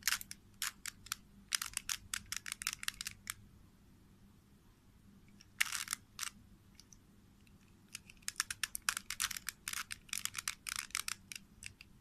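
A 3×3 Rubik's cube's plastic layers turned by hand, clicking and clattering in quick runs: a burst of turns in the first three seconds, a single sharper rattle about halfway, then a longer run of rapid turns toward the end.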